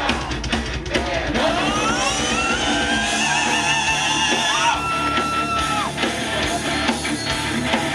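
Heavy rock band playing live, loud and full, with a lead line of gliding, bending notes and one long held high note near the middle.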